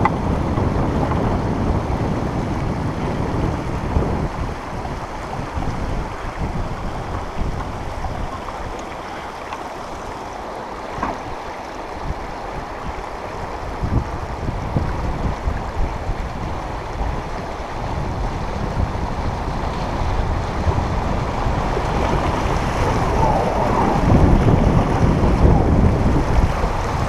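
Rushing water of shallow rocky river rapids around a packraft, with wind buffeting the microphone. It eases off somewhat in the middle and swells again toward the end.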